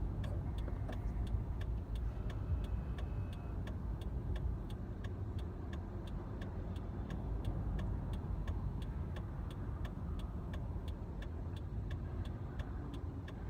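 Car-cabin road and engine noise at highway speed, a steady low rumble, with a regular light ticking at about three ticks a second.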